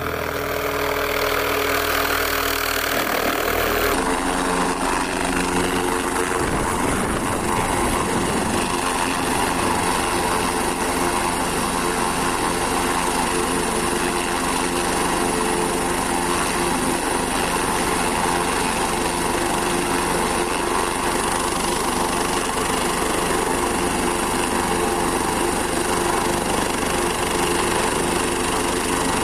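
Light helicopter flying in to land, then its engine and rotor running steadily on the helipad after touchdown. The sound changes abruptly about four seconds in, then stays even.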